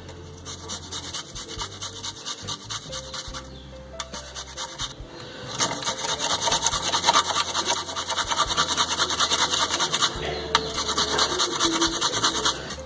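Garlic cloves rubbed rapidly back and forth on a flat metal grater: a fast, rasping scrape of many short strokes that gets louder about halfway through.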